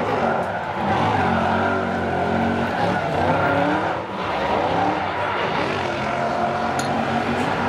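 BMW E30 drift car's engine at high revs, its pitch rising and falling as it drifts, with the rear tyres spinning and squealing. The revs dip briefly about four seconds in.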